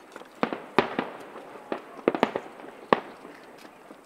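Aerial fireworks shells bursting: a string of sharp bangs at irregular intervals, with crackling between them; the loudest bangs come about a second in and near three seconds.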